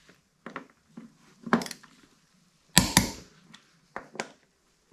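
Click-type torque wrench with a 19 mm socket tightening a tractor's front wheel bolts to 110 foot-pounds: a few short, sharp clicks and knocks, the loudest a close pair of clicks near the middle, the wrench signalling that the bolt has reached its set torque.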